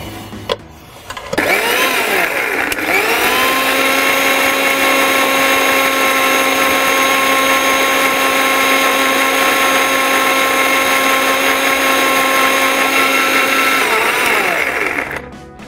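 Indian mixer grinder's motor grinding coconut and spices to a thin paste in a small stainless-steel jar. After a click about half a second in, it spins up to a steady high whine, runs for about twelve seconds, then winds down and stops near the end.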